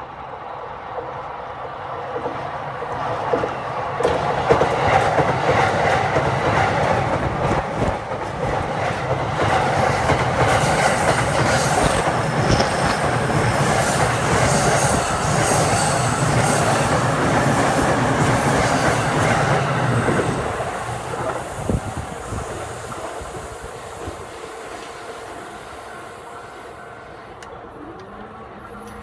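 JR East electric multiple-unit commuter train passing close by at a level crossing, its wheels clattering over the rail joints. It builds over the first few seconds, stays loud for about sixteen seconds, then fades after about twenty seconds in.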